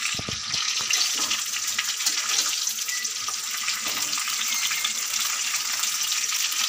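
Air-dried mango pieces sizzling steadily in hot mustard oil in a steel wok on low heat, stirred with a metal spatula that scrapes the pan.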